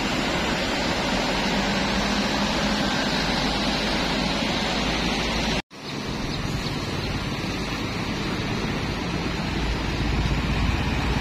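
Vehicles wading through a flooded road: a steady wash of water around their wheels with engine rumble underneath. The sound drops out for an instant a little over halfway through, and the low engine rumble grows near the end.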